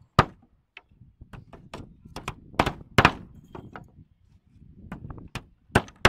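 Claw hammer driving nails into wooden battens to join the corner of a frame. It makes a run of sharp, irregular blows, pauses for about a second after the middle, then strikes a few more times near the end.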